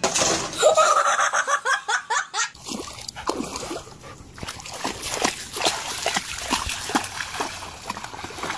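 A dog wading through shallow lake water, its legs splashing in quick irregular strokes. For the first couple of seconds, before the wading, there is a louder burst of splashing with a person's raised, laughing voice.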